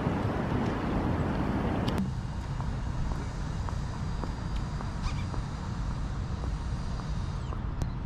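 Outdoor rumble of wind on the microphone and traffic. About two seconds in, the hiss in the upper range cuts off abruptly, leaving a steady low rumble with a few faint clicks.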